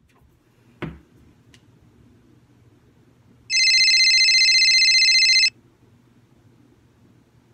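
A mobile phone rings: one steady electronic ring of about two seconds, a little before the middle. It follows a single thump near the start, over a faint low hum.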